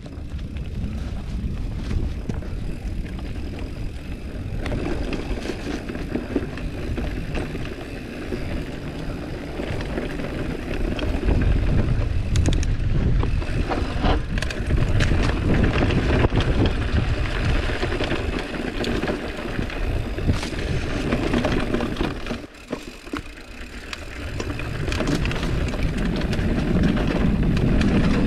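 GT Avalanche mountain bike rolling along a dirt trail: knobby tyres on dirt with the bike rattling and clicking over bumps, under a heavy rumble of wind on the microphone. The riding noise eases briefly about two-thirds of the way through, then picks up again.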